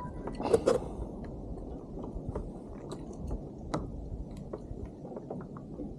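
Wet squelching, clicks and knocks of a freshly caught kahawai being handled on a kayak, with a louder pair of knocks about half a second in.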